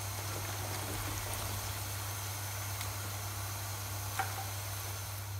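Cassava chips deep-frying in hot oil: a steady sizzle of bubbling oil, with a faint tick about four seconds in.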